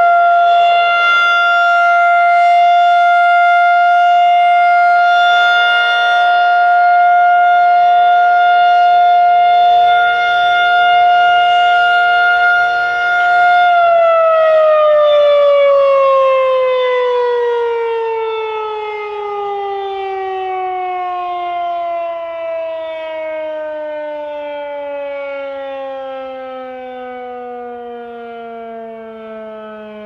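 Federal Signal 2001-130 rotating electromechanical siren sounding a steady alert tone. About 14 seconds in it shuts off and winds down, its pitch falling steadily and its level fading as the rotor slows.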